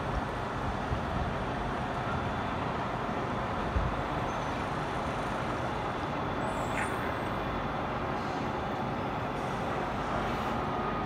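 Steady rumble and hiss of distant heavy construction machinery working in a dam excavation pit, with a faint steady mechanical hum and a single knock about four seconds in.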